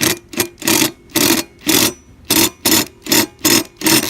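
Impact driver run in about ten short pulses, two or three a second, hammering a lawn mower's blade bolt tight.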